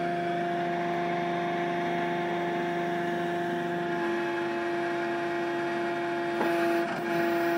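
Palfinger crane's hydraulic drive running with a steady whining hum as the crane swings its loaded manure grab. About six and a half seconds in the tone wavers briefly and then settles a little louder.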